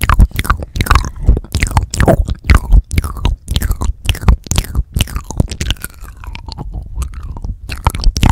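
Wet mouth sounds made with the lips right on a Tascam DR-40X recorder's microphone capsules: quick, irregular lip smacks and licking clicks, several a second. They ease off into softer, wetter sounds for a couple of seconds past the middle, then pick up again.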